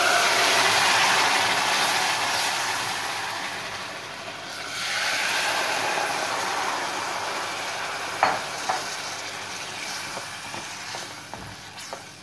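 Hot sugar syrup hitting semolina toasted in butter, sizzling loudly as it is poured in and stirred with a wooden spoon. The sizzle eases, swells again about five seconds in as more syrup goes in, then slowly dies down as the semolina soaks up the syrup. A couple of sharp knocks come about two-thirds of the way through.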